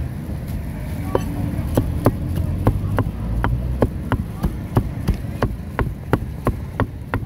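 A cleaver chopping grilled pig-head meat on a metal pan: sharp knocks at a steady rhythm of about three a second.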